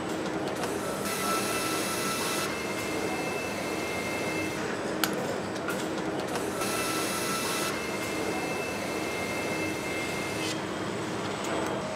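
Electric nutrunner whining as it drives bolts into the aluminium housing of an electric drive unit: two runs of three to four seconds each, with a sharp click between them, over a steady low factory hum.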